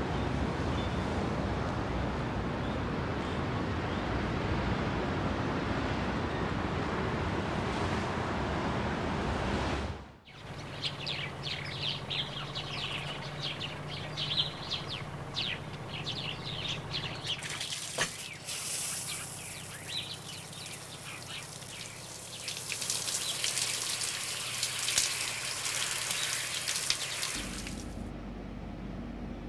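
Layered ambience: a steady low rumble of street traffic cuts off suddenly about ten seconds in. Birds chirp in its place, then comes the hiss of running water, loudest in the last few seconds before a low rumble returns.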